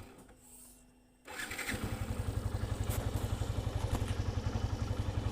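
Motorcycle engine starting about a second in, then idling with an even, fast low putter.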